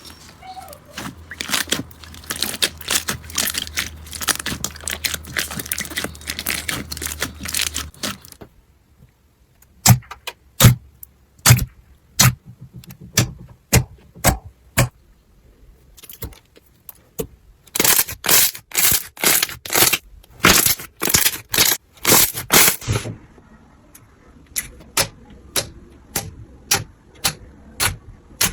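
Crunchy slime being squeezed and pressed by hand. For about the first eight seconds it crackles densely, then gives a series of separate sharp pops and clicks, with a quicker run of them in the middle.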